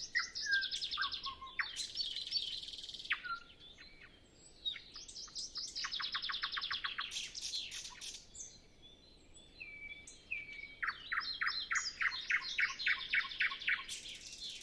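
Nightingale singing at dawn: three song phrases separated by short pauses, each made of fast runs of repeated notes mixed with whistles and buzzy notes.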